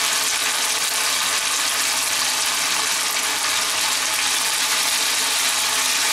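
Potato cubes frying in hot oil in a nonstick kadai: a steady sizzle.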